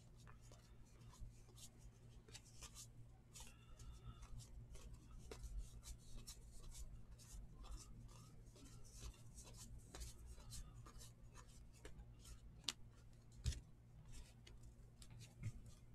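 Faint rubbing and light clicks of thin cardboard baseball cards being slid one behind another as a stack is flipped through by hand, with one sharper tap late on. A steady low hum runs underneath.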